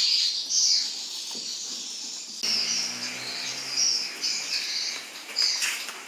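High-pitched, irregular chirping of small animals, with a faint low hum coming in about two and a half seconds in.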